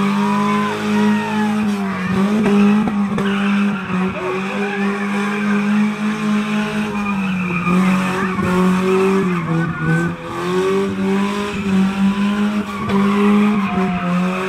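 A race car's engine is held at high revs, easing off briefly a few times, while its tyres squeal as the car slides in tight circles around a tyre stack.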